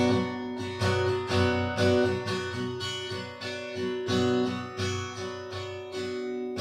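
Acoustic guitar playing the instrumental ending of a song, picked notes and strums about two a second over ringing strings, settling onto a sustained chord near the end.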